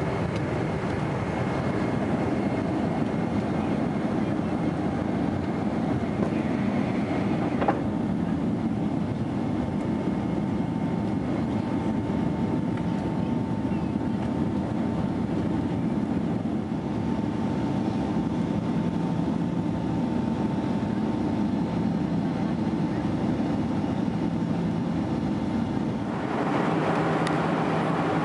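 Steady roar of a Boeing 767-300's jet engines and rushing air heard inside the economy cabin during the climb-out, with a faint steady whine through most of it and a single click about a quarter of the way in. The sound shifts near the end.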